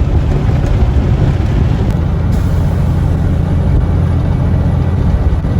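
Steady engine and road rumble of a semi-truck driving at highway speed, heard inside the cab.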